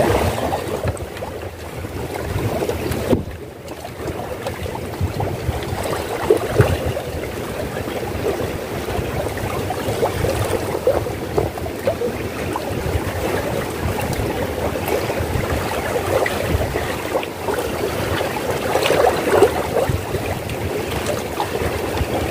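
Sea water lapping and slapping irregularly against a bamboo fishing platform, with wind buffeting the microphone in a low rumble.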